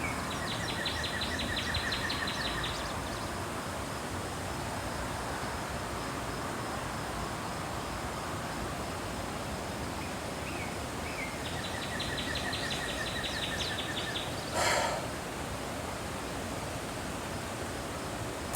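Steady wind noise outdoors with a songbird singing twice: a few short chirps, then a rapid, even trill lasting about two seconds. A brief dull thump about fourteen and a half seconds in.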